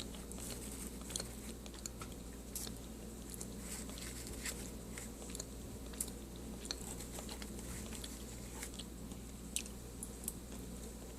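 Close-up chewing of crunchy baked cornstarch chunks: irregular crisp crackles and snaps of the chunks breaking between the teeth, a few sharper ones standing out, over a low steady hum.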